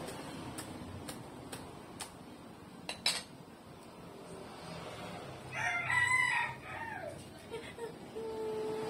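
Knife clicking and tapping against a durian's spiky husk, with a sharp clack about three seconds in. In the second half a rooster crows, the loudest sound, ending in a long held note.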